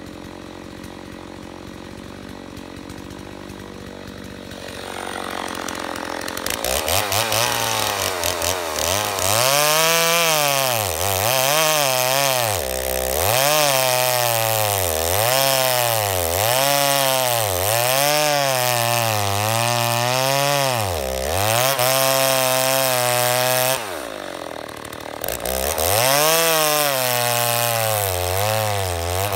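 Stihl MS 290 two-stroke chainsaw idling, then revved up about six seconds in to buck a fir log. Its engine pitch dips and recovers over and over as the chain bites under load. Near the end it briefly falls back before going into the cut again.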